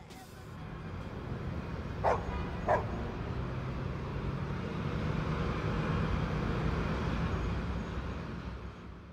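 Two short, sharp yelps about half a second apart, over a steady low hum and hiss that slowly grows louder and then cuts off near the end.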